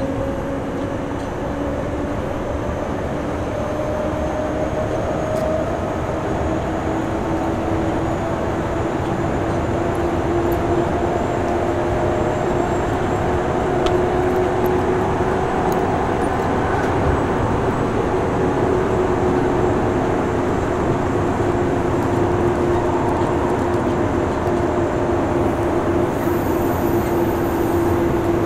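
Nagoya Municipal Subway 3000 series chopper-controlled electric train running, heard from inside the car: steady wheel-and-rail running noise with a motor hum that slowly rises in pitch, the whole growing gradually louder.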